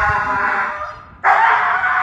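Husky howling in protest at being carried home from its walk: one long wail that fades away about a second in, then a second loud wail that starts abruptly.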